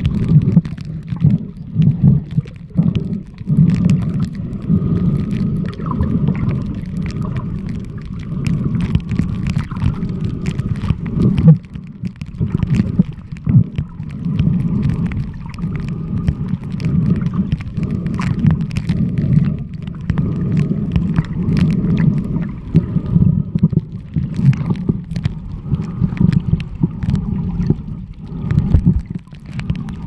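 Muffled underwater rumble and gurgling of moving seawater picked up by a smartphone's microphone while submerged, uneven and full of small knocks and bumps.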